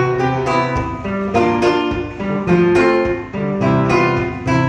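Solo classical-style acoustic guitar playing an instrumental break: plucked melody notes and chords over bass notes, a new note every few tenths of a second.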